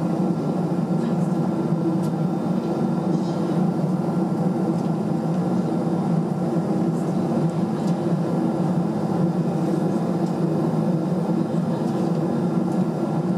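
Steady low cabin hum inside a parked Airbus A319, with a few held tones and no change in level: the aircraft's air-conditioning and ventilation running.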